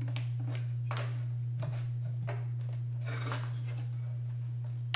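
Plastic car tail light assembly being handled: soft scrapes and a few small clicks as its plastic trim plate is pressed into place and the lamp is turned over on a paper-covered bench. A steady low hum runs underneath.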